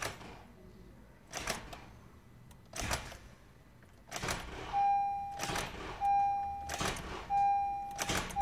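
Starter of a 2012 Honda Civic bumped with the ignition key for a fraction of a second at a time, to line the newly refitted serpentine belt up on its pulleys. It gives a short burst about every second and a half. From about halfway, a dashboard warning chime beeps over it in a steady repeated tone.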